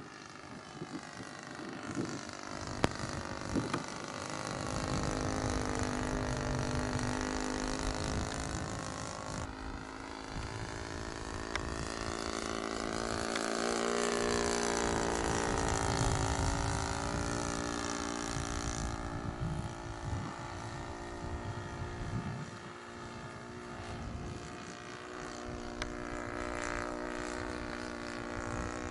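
Saito 62 single-cylinder four-stroke glow engine of a radio-control model aircraft running in flight. It grows louder as the plane passes low about fourteen seconds in, with a slight shift in pitch as it goes by, then fades as it climbs away.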